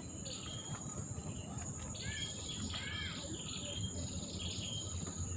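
Insects calling in one steady high-pitched note, with birds chirping over it and a pair of arched bird calls about two to three seconds in, over a low rumble.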